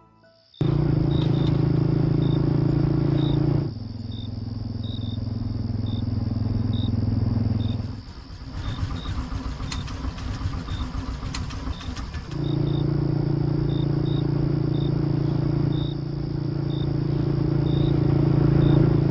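Motorcycle engine running steadily, its note shifting a few times and growing louder near the end, over crickets chirping at an even pace and a steady high insect whine.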